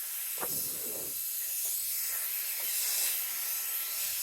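Handheld hair dryer running, a steady rush of air with a little faint handling noise about half a second in.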